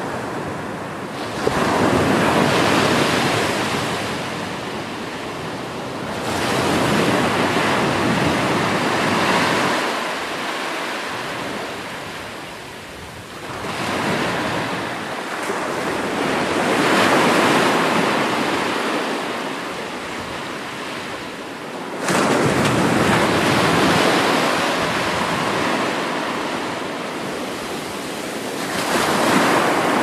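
Sea surf breaking and washing up a sandy beach: the hiss of the water swells and ebbs in about five surges, roughly every five to eight seconds, one breaking abruptly about 22 seconds in.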